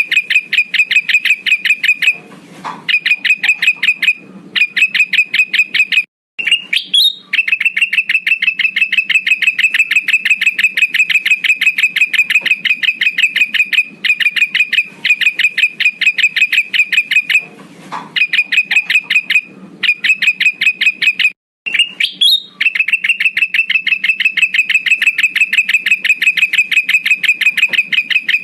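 Lure recording of a male kutilang emas bulbul calling: a rapid, even series of high notes, several a second. The series is broken now and then by a short pause and an upward-sliding note, and the same passage repeats about every 15 seconds as a loop.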